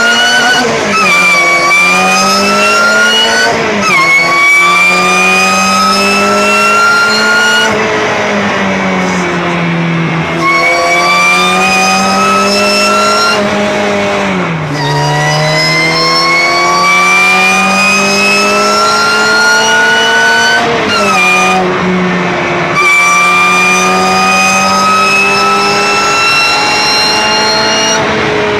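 Supercharged car accelerating hard through the gears, its supercharger whine and engine note climbing in pitch through each gear and dropping at each upshift, about five pulls in a row.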